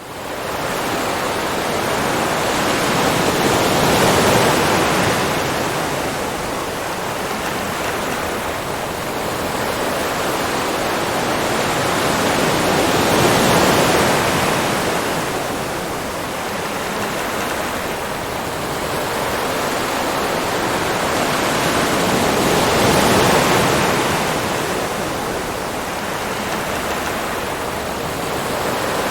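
Ocean waves washing in, a continuous rush of surf that swells to a peak and eases off three times, about every nine to ten seconds.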